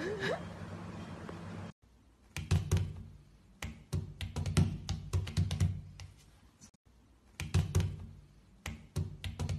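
Irregular light taps and thumps on a tabletop, in loose clusters, from a small puppy pawing at the table edge. There is a faint steady hum during the first second and a half.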